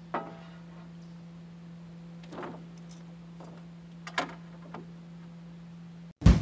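Three sharp knocks with a short ringing tail, about two seconds apart, over a steady low hum. The hum cuts off suddenly near the end.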